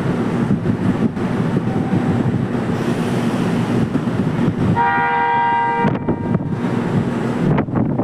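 A JR Kyushu train sounds its horn once, a single steady chord about a second long, partway through. Under it runs a steady rumble of the train and wind.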